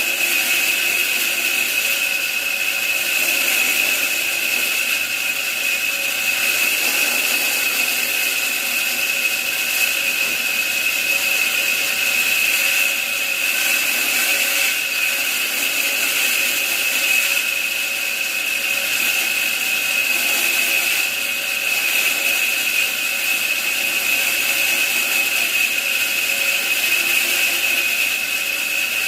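A power tool working wood, running steadily with a constant high whine over a hiss.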